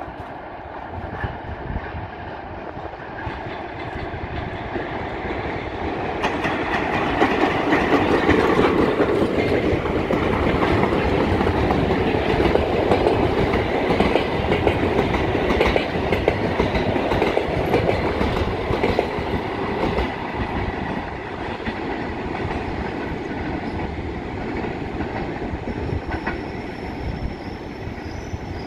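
A ChS7 electric locomotive and its passenger cars rolling into the station, the wheels clattering over rail joints and switches. The clatter builds as the train draws level and eases off as the cars pass, and a thin high wheel squeal starts near the end.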